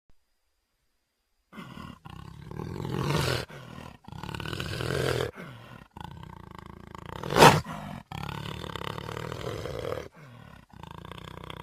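Cougar (puma) giving a string of loud, harsh calls, starting about a second and a half in and separated by abrupt cuts. The sharpest and loudest call comes about halfway through.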